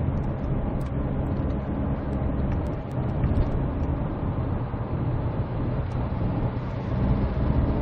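Cabin noise of a 2012 SsangYong Korando Sports pickup cruising on the road: a steady diesel engine hum under an even rumble of tyre and road noise.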